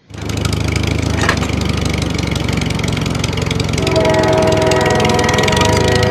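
Steady engine-like running with a low hum and a fine, even rhythm. About four seconds in, a set of held steady tones joins it.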